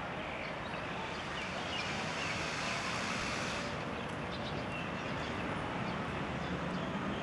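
Steady hum of distant street traffic, with a few faint short high chirps over it.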